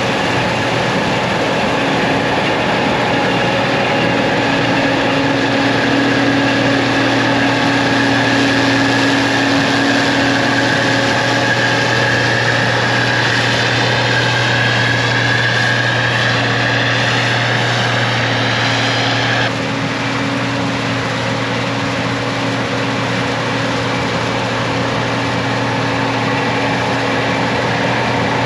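Gleaner R52 combine running steadily while harvesting soybeans: a constant engine and machinery drone with steady hum tones. A higher whine rises over several seconds and then cuts off suddenly about two-thirds of the way through.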